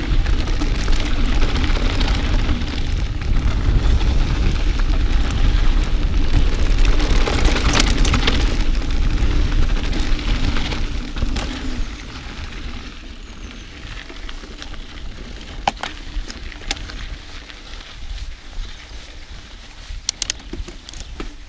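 Mountain bike ride heard through a GoPro's microphone: wind buffeting the mic over tyres rolling on a dirt trail, loud for the first half. After that it drops to quieter rolling, with scattered sharp clicks and rattles from the bike.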